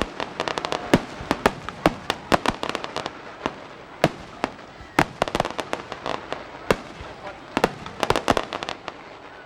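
Fireworks display: a rapid, irregular string of sharp bangs and crackling pops, bunching into fast runs about two seconds in and again near the end.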